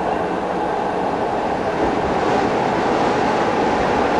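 Sheffield Supertram tram running along its track, a steady rumble of wheels and drive heard from inside the driver's cab. It gets a little louder about two seconds in.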